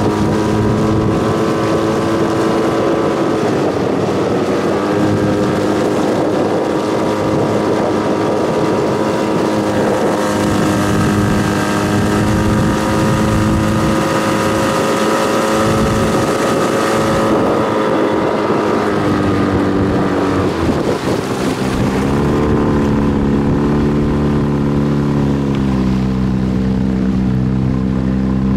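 Motorboat engine running steadily under way, with wind noise on the microphone; the engine note shifts a few times and drops lower about three-quarters of the way through.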